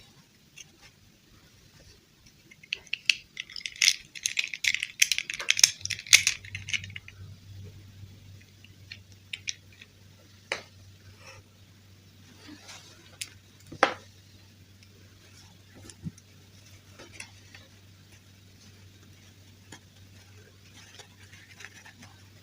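Small plastic toy pieces and packaging handled: a dense burst of rattling, clicking and crackling a few seconds in that lasts about four seconds, then occasional single clicks. A faint low hum runs underneath from about six seconds in.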